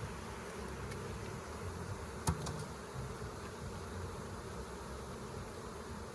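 Honeybees buzzing steadily around an open hive, with one sharp click about two seconds in.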